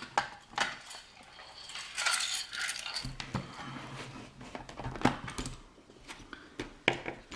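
Small metal parts of a Master Lock No. 230 padlock clinking and tapping as it is taken apart. The sharp clicks come irregularly, with a short rattling stretch about two seconds in.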